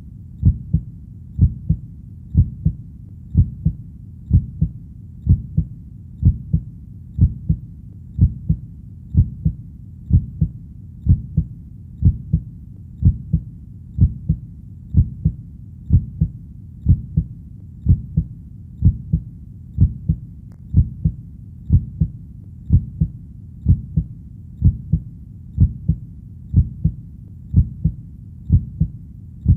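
Heartbeat: a steady lub-dub double thump about once a second, low in pitch, over a faint steady background hiss.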